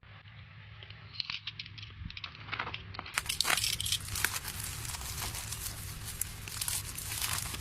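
Packaging being unwrapped by hand: plastic and paper crinkling and tearing with dense, irregular crackles and clicks. It gets louder and brighter about three seconds in.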